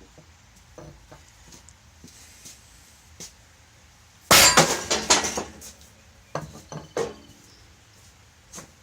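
Hammer blows driving at a seized output shaft in a baler gearbox: a quick run of loud metallic strikes with ringing about four seconds in, followed by a few lighter knocks.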